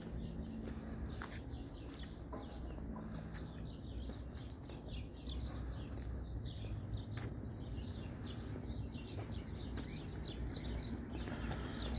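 Small birds chirping in quick, repeated short notes over a low, steady background rumble, with a few sharp clicks.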